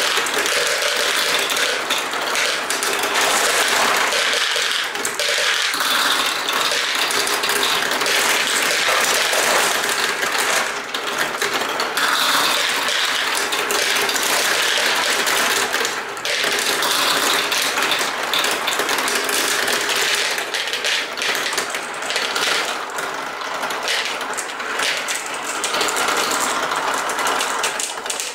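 Many marbles rolling and clattering down a plastic marble run, a dense, continuous rattle of hard little clicks that barely lets up.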